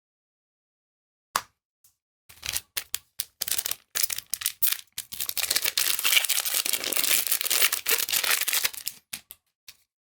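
Foil booster pack wrapper being torn open and crinkled: a single click, then scattered sharp crackles that build into a dense crinkling rustle for several seconds before dying away into a few clicks.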